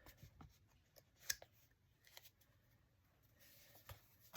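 Near silence with faint paper handling: a few light taps and rustles of cardstock being glued and handled, the sharpest about a second in.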